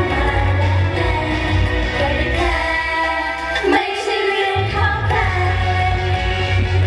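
Thai idol-pop song performed live through a PA: young women singing into handheld microphones over a backing track. The bass drops out for about a second midway, then comes back in.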